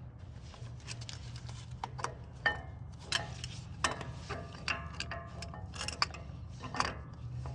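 Channel-lock pliers clicking and clinking against a brake caliper and pads as they are set to compress the caliper pistons: irregular sharp metal ticks, about one to two a second, over a steady low hum.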